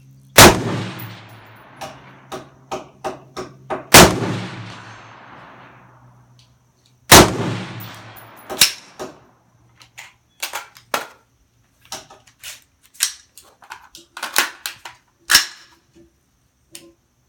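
Three loud rifle shots about three and a half seconds apart, each with a long echoing tail, then a scattered run of fainter sharp cracks and clicks.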